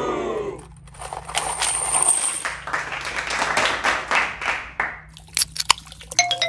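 Roofing nails poured from a cardboard box, rattling and clattering for about four seconds into a toilet bowl heaped with coffee grounds and glitter. A few sharp clicks follow, and near the end a short tune of descending chiming notes starts.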